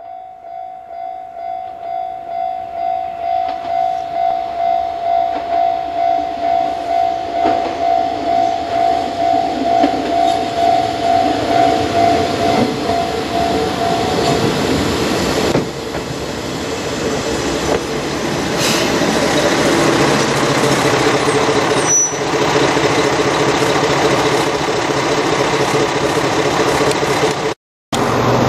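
Japanese level-crossing warning bell ringing in an even, rapid two-tone pattern, which stops about halfway through. Then a Heisei Chikuho Railway 400-series diesel railcar rolls in, its engine and wheels growing louder as it draws up, with a brief high squeak near the end.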